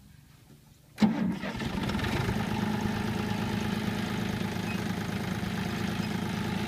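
A John Deere farm tractor's diesel engine starts about a second in and then runs steadily.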